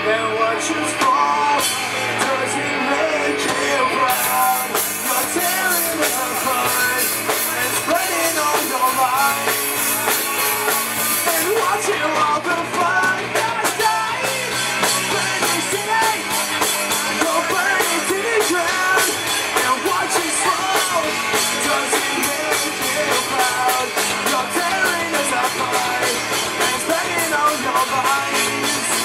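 Rock band playing live through a PA: electric guitars, bass guitar and drum kit. A stretch of ringing cymbals runs from about four to twelve seconds in, followed by a fast, even drum beat.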